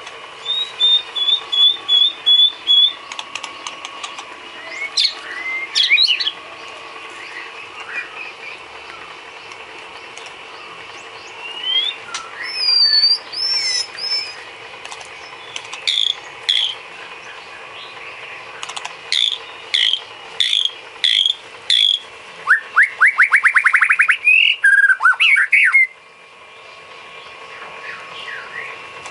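Songbird song: a varied string of short chirps, whistled notes and sliding calls, ending in a fast rattling trill of about three seconds near the end. Faint steady background tones run underneath.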